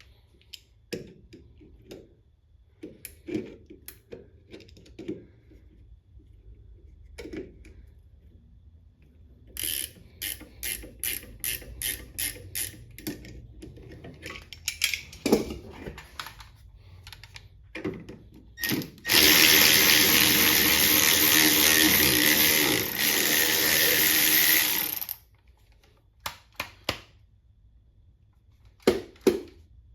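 Metal clicks and knocks of wrenches working a shock-absorber nut, with a run of even clicks, then a power tool runs steadily and loud for about six seconds before stopping, followed by a few more clicks.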